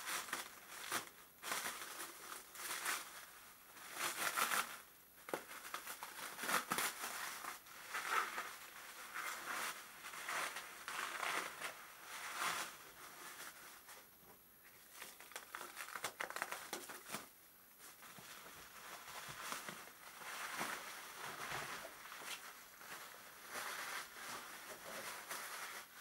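Clear plastic stretch wrap being pulled off a machine and bunched up by hand, rustling in irregular bursts.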